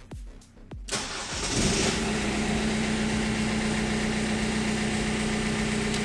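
BMW E46 engine cranked over by the starter about a second in, catching quickly and settling into a steady idle. It starts on the newly fitted ignition switch, which cures the no-start fault.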